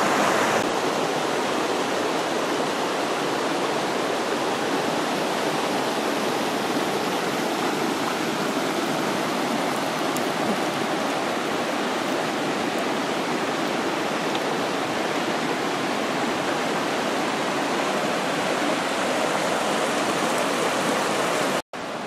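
Steady rush of a fast-flowing creek, running water without a break except for a short dropout near the end.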